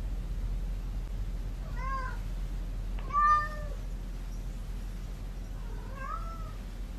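Domestic cat meowing three times, short calls that rise and fall in pitch, the middle one the loudest; the meows come across as the cat saying "no".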